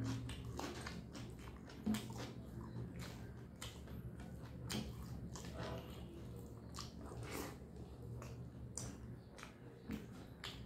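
Close-miked chewing of a mouthful of food, with wet lip-smacks and mouth clicks coming at irregular intervals over a low steady hum.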